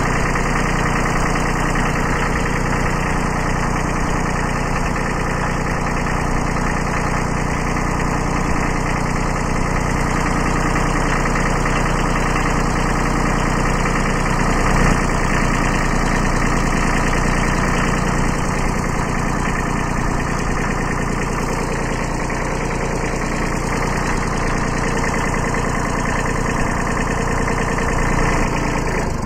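Kubota B7100's D750 three-cylinder diesel engine running steadily, warmed up.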